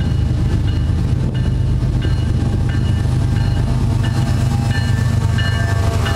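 A diesel-hauled freight train passing close by, led by Union Pacific locomotives: a steady, heavy low engine rumble. Short high-pitched tones come and go over it.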